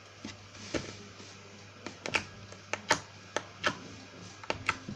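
Slime being squeezed and worked in the hands, giving off about a dozen sharp, irregular clicking pops.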